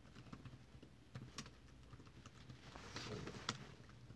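Faint, irregular keystrokes on a keyboard, a handful of scattered clicks with a couple of sharper ones, as a terminal command and a password are typed.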